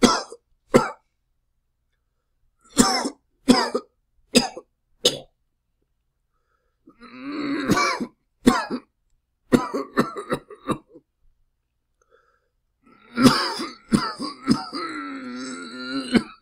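A person coughing loudly in separate fits: single coughs and short runs of two or three harsh coughs with silent gaps between them, a longer hacking throat-clear about halfway through, and a long drawn-out fit near the end that trails into a held, voiced rasp.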